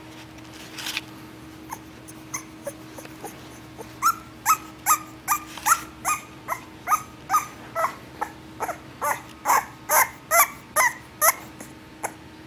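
English Bulldog puppies whimpering and crying in a quick run of short, high cries, about three a second, some dropping in pitch. A few faint cries come first, the run starts about four seconds in and stops about a second before the end, over a steady low hum.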